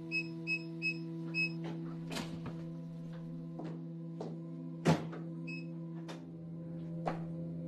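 Four short electronic beeps from a digital door-lock keypad as a code is punched in, followed by clicks and knocks of the lock and door opening, with one sharp knock about five seconds in and another single beep soon after. A steady low drone sits underneath.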